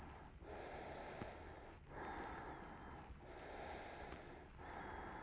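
A man's slow, audible breathing through the throat, Ashtanga-style ujjayi breath, heard as a faint soft hiss in strokes about every second and a half.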